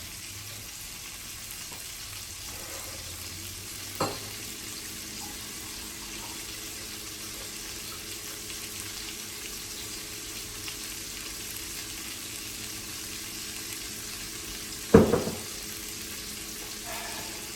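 Chicken breasts frying in melted butter in a pan: a steady sizzle, with a light knock about four seconds in and a louder clunk near the end.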